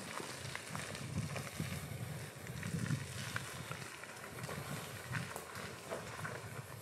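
Land Rover Defender P300 crawling slowly along a rutted dirt woodland track: a low, uneven rumble of engine and tyres, with scattered small crackles as the tyres roll over the leaf-strewn ground.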